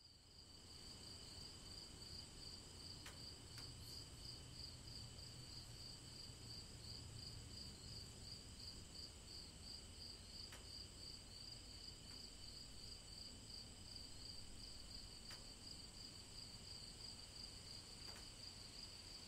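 Faint night chorus of crickets: a steady, evenly pulsing high chirp, with a few faint clicks.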